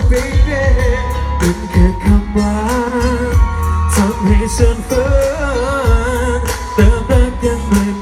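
Live Thai pop song amplified through a concert sound system: a singer with a wavering vibrato over a band with heavy bass and a regular drum beat.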